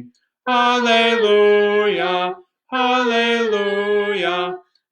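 A man and a woman singing a hymn's "Hallelujah" refrain unaccompanied: two drawn-out sung phrases with a short silence between them.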